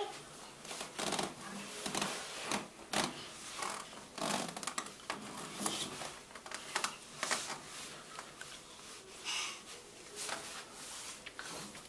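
Irregular soft rustles and light taps of a baby moving about on a pack-and-play crib mattress and grabbing its side rail.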